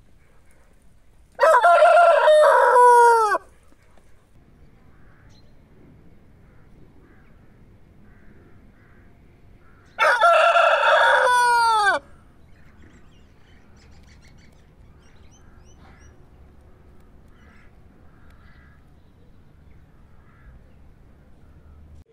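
Rooster crowing twice, about eight seconds apart; each crow lasts about two seconds and falls in pitch at the end. Faint scattered calls are heard between the crows.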